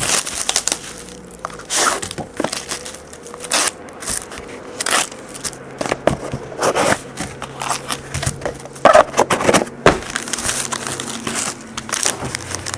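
Plastic packaging crinkling and tearing in irregular crackles as a trading-card box is opened.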